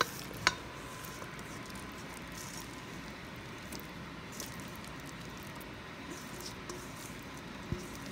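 Quiet wet squishing of blueberry pie filling sliding out of a metal bowl into a pie crust, pushed along by a silicone spatula. A sharp clink with a short ring comes about half a second in, and a single knock near the end.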